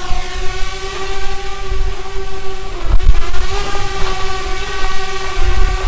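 A loud, steady horn-like electronic tone that has just glided up in pitch and then holds one note, with a few low thuds underneath.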